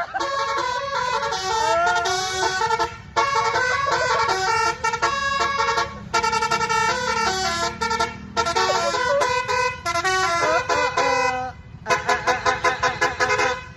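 Basuri telolet horn, a multi-tone bus horn, playing a melody. Its notes are held and step from one to the next, in phrases with short breaks between them, and there is a run of quick repeated notes near the end.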